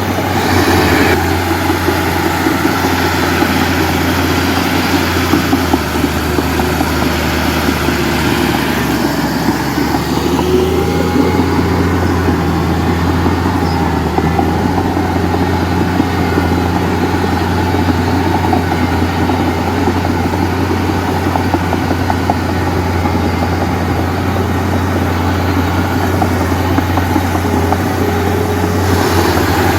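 Heavy diesel engine running steadily at a constant low hum, with a rough clattering noise over it.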